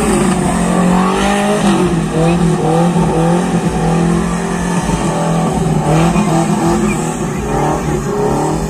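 Small pickup truck's engine revving hard as it drifts on grass, its pitch held high and wavering up and down.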